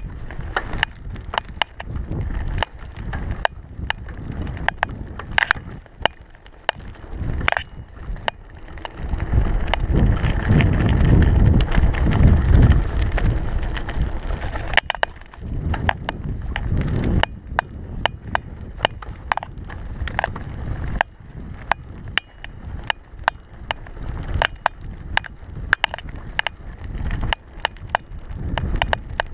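Mountain bike rattling and clicking over a rough dirt trail, with frequent sharp knocks from the frame and chain. Wind noise on the microphone rumbles under it and swells loudest for several seconds in the middle as the bike picks up speed.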